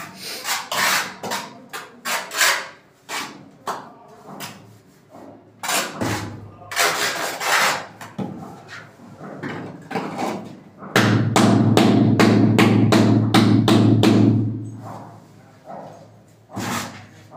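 Steel trowel scraping tile mortar out of a bucket and spreading it over the back of a large ceramic tile, in quick repeated strokes. About two-thirds of the way in, a loud steady low hum runs for some three seconds.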